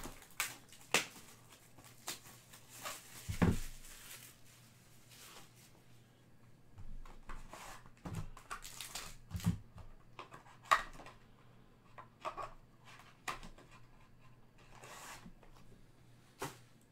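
Trading-card packaging being handled: a cardboard card box and a foil-wrapped pack rustling and crinkling, with irregular light taps and knocks.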